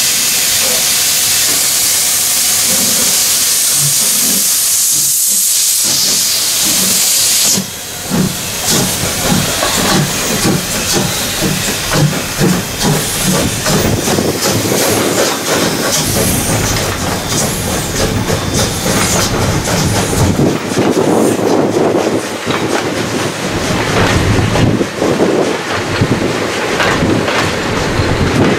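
Steam locomotive letting off a loud, steady hiss of steam that breaks off about eight seconds in, followed by a rhythmic run of pulses and rattles from the working locomotive and its train.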